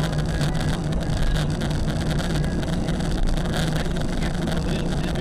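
Steady engine and road noise of a car driving, heard from inside the cabin, with a constant low hum.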